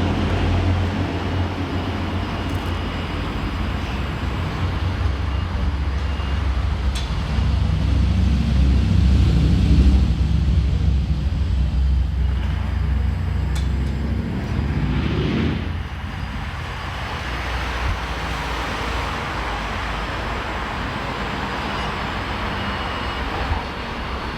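Simulated diesel engine sound of an RC construction machine, a steady low rumble that swells, briefly rises and falls in pitch after about fourteen seconds, then settles lower.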